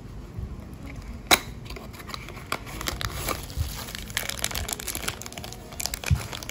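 Handling as a small cardboard toy box is opened: a sharp click about a second in, then crinkling of the thin clear plastic bag wrapped around a die-cast toy boat.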